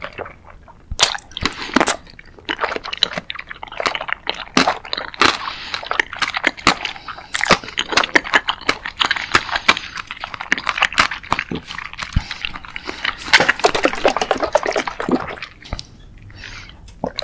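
Close-up wet chewing of soft jelly: many quick mouth smacks, clicks and squishes. Near the end, a sip from a small bottle of strawberry milk.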